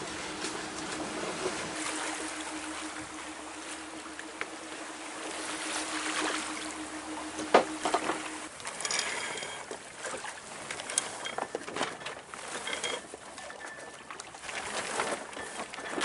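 A sailing yacht under way: wind blowing across the microphone and water rushing along the hull, with a steady low hum through the first half. A single sharp knock sounds about halfway through, and scattered small clicks and knocks of gear follow.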